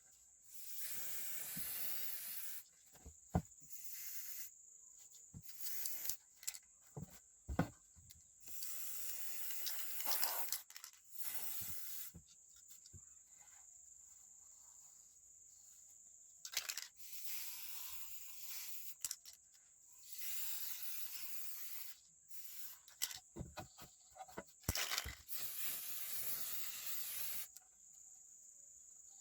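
Spraying hiss in repeated bursts of one to three seconds each, with small clicks and knocks of handling between the bursts.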